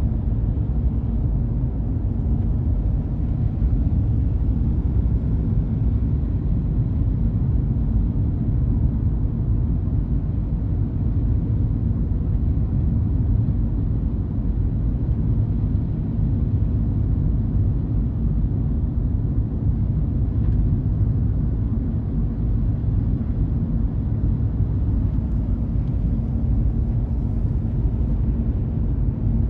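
Steady low rumble of a car driving, road and engine noise with a faint constant hum and no change throughout.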